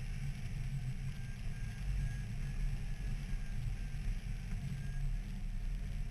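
Wind rushing over the microphone of a camera on a hang glider in flight, a steady low rumble, with faint short high beeps repeating through it.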